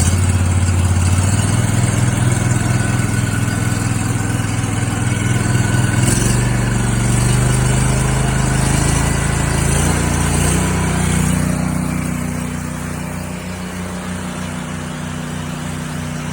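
Honda GX690 V-twin engine running under load, belt-driving an 8 gpm pressure washer pump. The engine note shifts in pitch a few times as the throttle is turned up.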